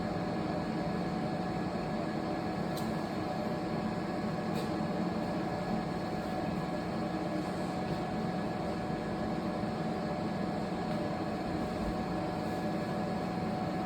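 Steady whir and hum of a 3D crystal subsurface laser engraving machine running, with a few thin steady high tones over it and two faint ticks a few seconds in.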